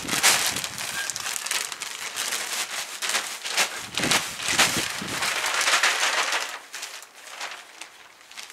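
Peat-free compost pouring and sliding out of a plastic sack onto soil, with the sack crinkling and rustling as it is shaken; the pouring dies away about seven seconds in.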